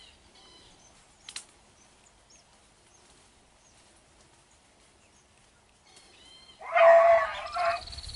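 A hunting beagle gives one loud, drawn-out bay of about a second near the end. Before it there are only faint bird chirps.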